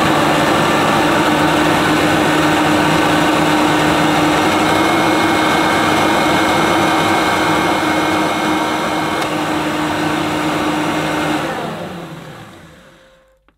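Hoover Turbomaster upright vacuum cleaner running with its brush roll spinning: a steady motor whir with a hum and a faint high whine. About eleven seconds in it is switched off and winds down over about two seconds.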